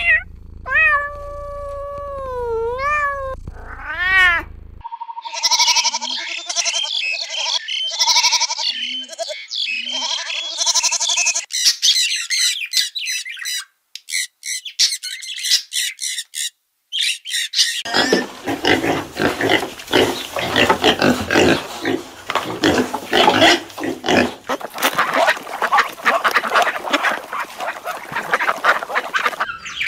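A cat meowing a few times in drawn-out, gliding calls, followed by birds squawking and chirping. From about 18 seconds in, a flock of domestic geese honks continuously, many calls overlapping.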